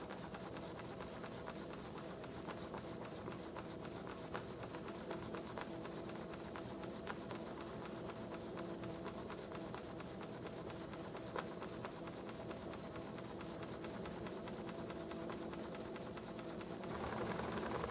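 Small home-built double-acting oscillating-cylinder steam engine running fast: a steady, rapid run of fine ticks from its rocking cylinder and exhaust. It grows louder about a second before the end.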